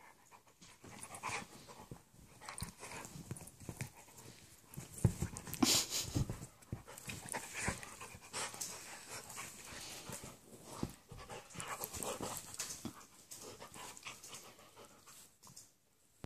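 A Labradoodle and an Italian greyhound play-wrestling: excited dog panting mixed with scuffling and mouthing noises, coming in irregular bursts.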